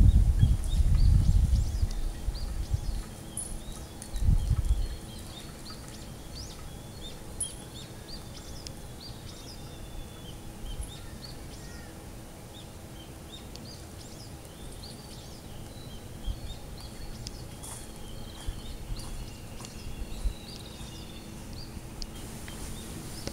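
Small birds chirping in short, scattered calls throughout. A loud low rumble on the microphone covers the first few seconds and comes back briefly about four and a half seconds in.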